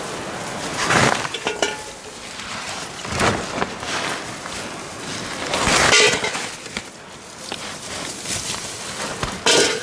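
Rustling and clattering as a plastic tarp is brushed aside and dried corn cobs are rummaged in a woven basket, in a few short rough bursts.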